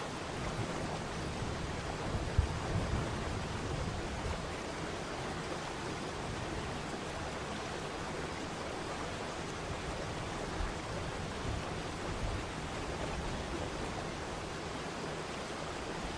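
Waterfall: falling water making a steady, even rushing noise, with a few brief low thumps, the sharpest about two seconds in.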